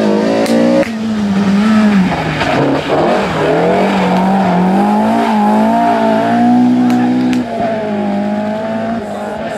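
Rally car engine running hard at high revs; its pitch drops about two and a half seconds in, climbs back, then holds high and steady, easing slightly near the end.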